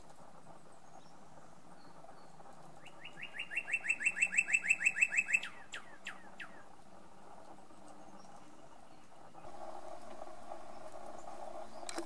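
Male northern cardinal singing one song: a rapid run of short down-slurred whistles, about seven a second, growing louder, then two or three slower down-slurred notes to finish.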